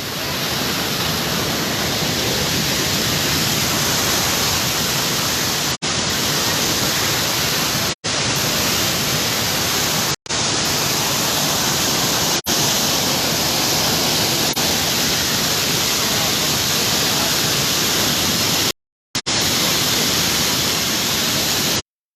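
Steady rush of water pouring down the Malacatiupan thermal waterfall close to the microphone. The sound cuts out completely for brief moments several times.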